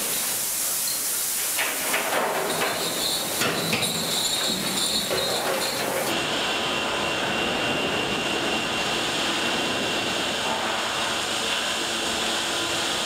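Iron ore rattling down a chute into an ore car, with metal clanks, knocks and squeals. About six seconds in this gives way to the steady hiss and drone of underground ore-handling rail machinery.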